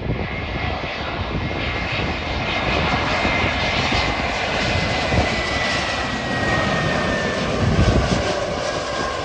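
Airbus A320 jet airliner passing on its landing approach: steady engine noise with a high whine that slowly falls in pitch, building to a low rumble about eight seconds in.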